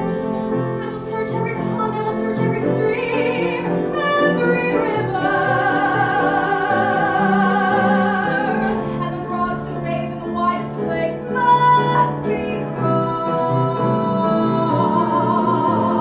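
A musical-theatre song sung live, with long held notes sung with vibrato over instrumental accompaniment.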